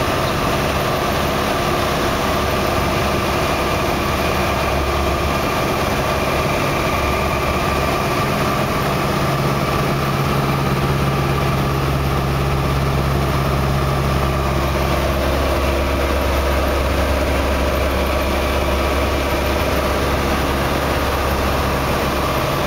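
Single-engine light aircraft's piston engine and propeller running steadily in flight, heard from inside the cabin, with a constant hiss of air rushing past the airframe.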